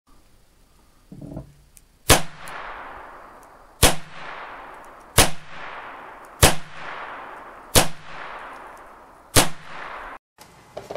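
An RG 23 .22 LR revolver fired six times, each sharp shot followed by a long echo, the shots spaced about a second and a half apart.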